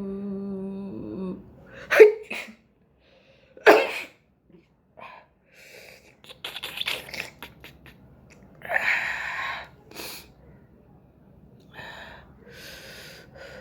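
A person sneezing, set off by tickling the nose with an ear bud. A drawn-out wavering 'aah' builds into two sharp sneezes about two and three and a half seconds in. Sniffling, breathy snorts and a forceful blast of breath follow.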